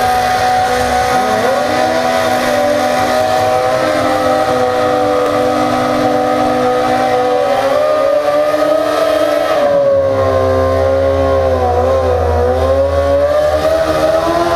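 Sport bike engine held at high revs through a burnout, the pitch wavering slightly. A second, deeper engine note joins about ten seconds in.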